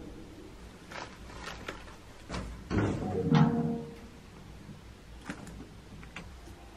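Handling noises: a few light clicks and knocks with cloth rustling, then a louder cluster of knocks and rustles a little past the middle, as a canvas tote bag is slung onto the shoulder. Faint music sits underneath.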